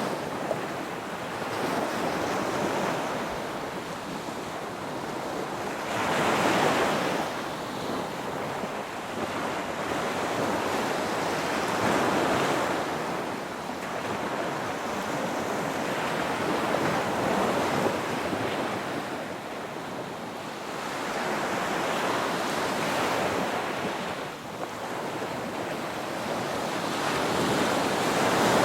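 Ocean surf: waves breaking and washing in a continuous hiss that swells and ebbs every five or six seconds, with the loudest surge near the end.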